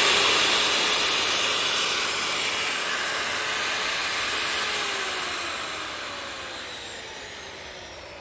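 Makita large angle grinder, with no disc fitted, coasting down after being switched off: the whine and fan hiss of its motor slowly fade and fall in pitch over several seconds.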